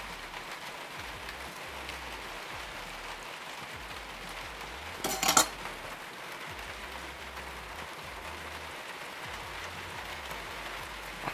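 A steady rushing hiss, with one short, loud clatter about five seconds in.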